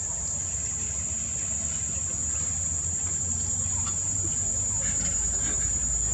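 Insects droning steadily in one high, thin, unbroken note, over a low rumble that grows toward the end, with a few faint ticks.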